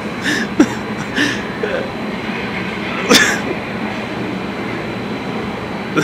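Coin-operated hurricane wind booth's blower running, a steady rush of air, with a few brief crackling bursts in the first second and one louder sharp noise about three seconds in.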